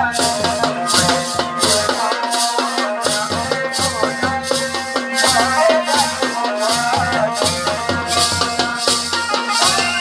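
Pahari folk music for a tandi song-dance: drums and a bright rattling percussion keeping a steady beat of about two strokes a second under a wavering melody.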